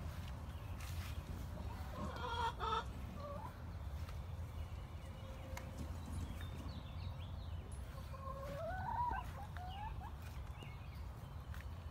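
Chickens clucking: one call about two and a half seconds in and a rising call about nine seconds in.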